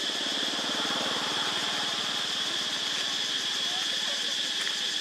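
A small motorbike engine running past, its sound fading out after about three seconds, over a constant high-pitched drone.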